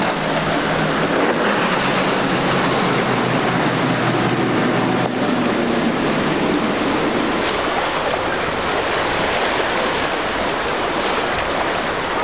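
Steady rush of waves and wind, with the low hum of a boat engine underneath that dies away about halfway through.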